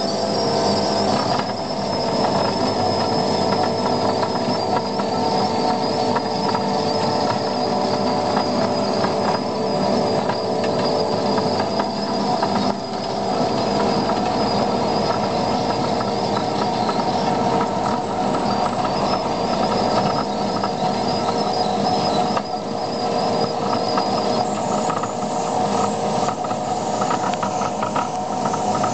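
Skid steer loader driving a Simex PL hydraulic planer, its drum milling asphalt: a steady engine-and-hydraulic drone with a high whine over a grinding hiss, shifting abruptly in tone a few times.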